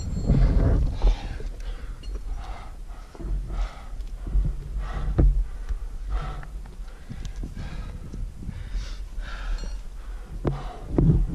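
A climber's hard, quick breathing under exertion at high altitude while carrying a heavy pack up rock: a steady run of short panting breaths, about one or two a second, over a low rumble, with a few sharp clicks.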